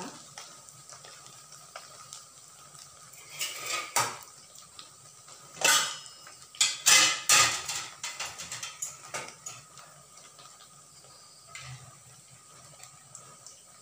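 Metal utensils clattering against a steel wok and bowl, in a run of sharp knocks through the middle, over the faint sizzle of an achappam (rose cookie) deep-frying in coconut oil.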